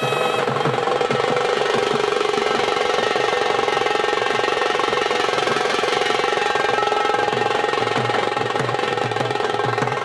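Fast, continuous drumming on several stick-beaten folk drums, with a wind instrument holding a steady note over it: the live accompaniment for a Veeragase dance.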